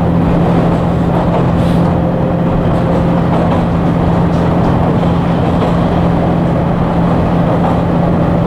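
Interior running noise of a JR Shikoku KiHa 40 and KiHa 47 diesel railcar pair under way: a steady diesel engine drone with a low hum over the rumble of the running gear. A faint higher whine comes in about three seconds in and rises slightly.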